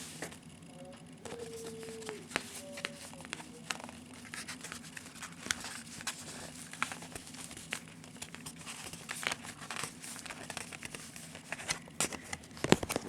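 CD gatefold packaging being handled by hand: soft rustling with scattered light clicks and taps of cardboard and plastic.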